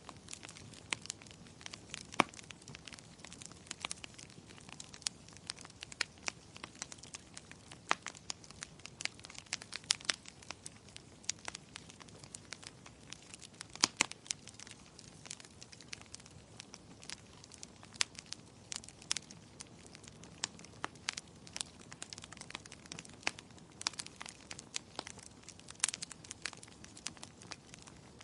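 Wood fire crackling in a fireplace: irregular sharp pops and snaps, a handful much louder than the rest, over a faint steady hiss of rain.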